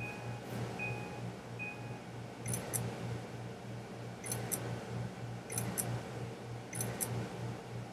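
Apple Photo Booth's countdown and camera sounds from the computer: three short high beeps a little under a second apart, then four shutter clicks about a second and a half apart as the four-photo strip is taken.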